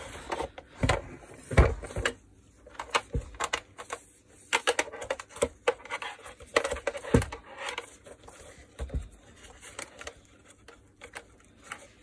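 Irregular clicks, taps and light scraping of hands handling the plastic vacuum-cleaner housing while routing the motor's wires, with a few sharper knocks among them.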